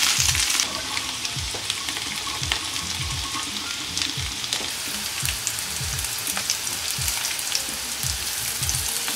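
Thick chunks of boiled potato frying in butter in a pan: a steady sizzle with scattered pops and crackles. Near the end a wooden spatula moves the pieces about in the pan.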